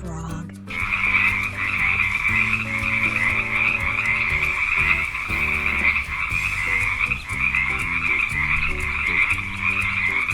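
Frogs croaking in a continuous chorus, starting just under a second in, with soft background music underneath.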